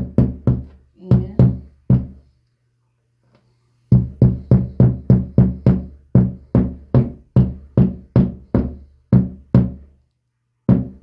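Hammer tapping a plastic wall anchor into a pre-drilled hole in the wall: quick, even blows, about three a second, each with a short low ring, with a pause of about a second and a half about two seconds in.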